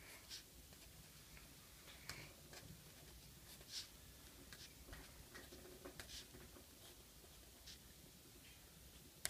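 Faint scratching and tapping of a marker tip on paper as letters and symbols are written, in short, irregular strokes.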